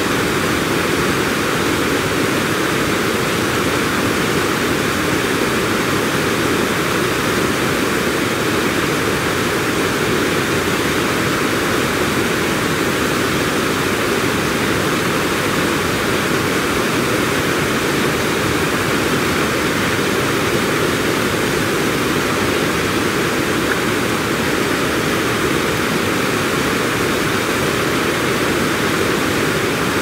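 Water spilling over a low dam spillway and churning into white water below: a loud, steady rushing.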